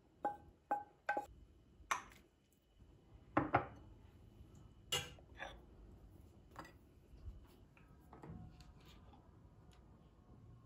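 A wooden spoon knocks three times in quick succession against a nonstick frying pan while rice is scraped out onto a plate, then dishes and the pan clink and knock on a stone countertop as they are set down.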